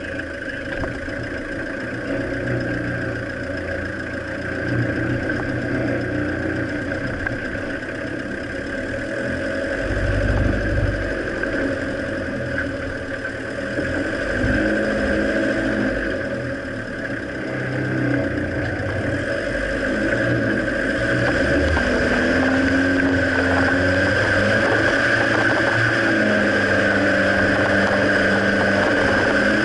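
Off-road 4x4's engine running at low speed through deep mud ruts, its note rising and falling with the throttle and getting louder and steadier in the last third.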